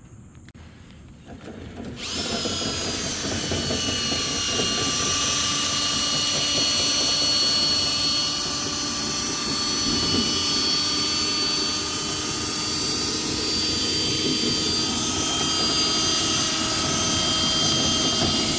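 Electric motor of a dryer-vent cleaning tool starts about two seconds in and runs steadily with a whine.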